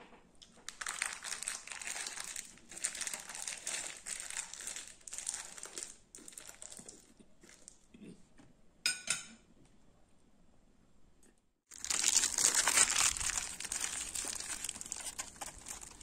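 Plastic crinkling and rustling in uneven bursts for about five seconds. A short sharp crackle comes about nine seconds in, and after a moment of quiet a louder spell of crinkling starts about twelve seconds in.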